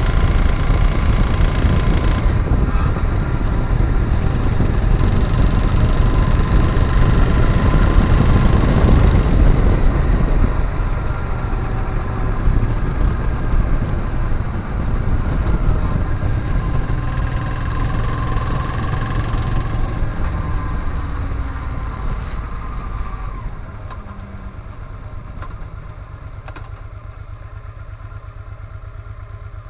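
Honda Africa Twin motorcycle engine running with a knocking sound. It is louder for the first ten seconds or so, then eases, and settles to a lower, steady idle near the end.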